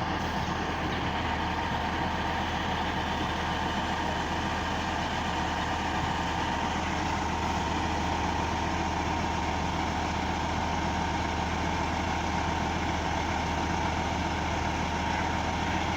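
Heavy diesel engine of road-milling machinery running steadily, a low drone with a steady whine over it.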